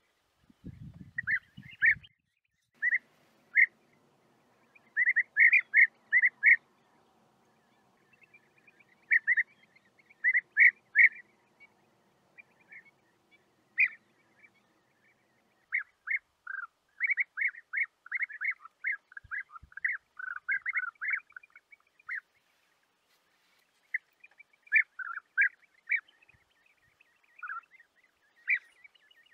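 European bee-eater calls: short, rolling notes repeated in quick clusters of two to six, with pauses between the clusters.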